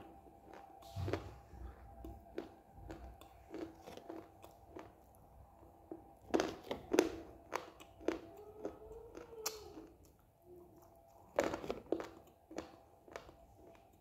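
Biting and crunching on pieces of dry clay, a series of crisp crunches, the loudest bites about six to seven seconds in and again near twelve seconds.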